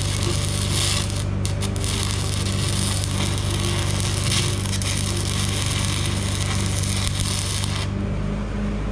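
Stick-welding arc crackling steadily on a cracked backhoe dipper stick, over the steady hum of the welding machine; the arc breaks off suddenly about eight seconds in while the hum carries on.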